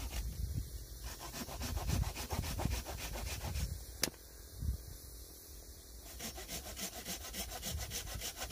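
Dry firewood branch being worked by hand in quick repeated rasping, scraping strokes of wood, with one sharp crack about four seconds in.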